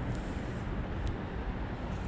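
Steady low outdoor rumble, with one small sharp click about a second in.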